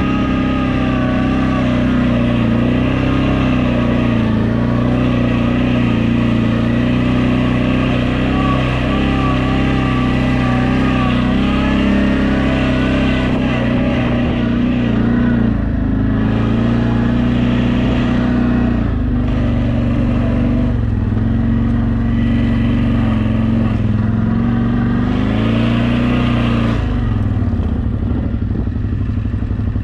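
CFMoto X8 quad's fuel-injected V-twin engine running with the throttle held, its note wavering gently up and down, then easing off and dropping toward idle near the end.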